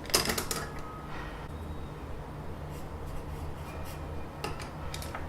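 Small hand tools being handled on a desk while measuring with a caliper and noting the result: a quick cluster of sharp clicks at the start, faint scratching, and two more clicks near the end.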